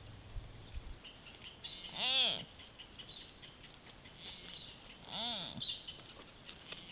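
Deer calling: two short calls about three seconds apart, each rising then falling in pitch.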